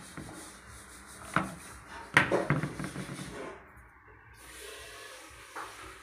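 Sharp plastic knocks and rubbing as a washing machine's water inlet valve is handled in its plastic mounting under the top panel; the loudest knock comes about two seconds in.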